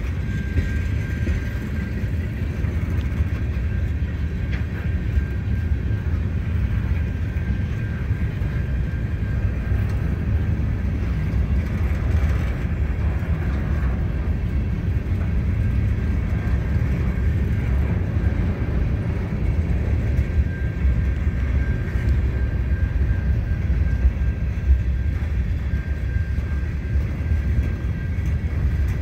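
Freight cars (tank cars, covered hoppers and boxcars) rolling past: a steady rumble of steel wheels on rail, with a faint high squeal that comes and goes.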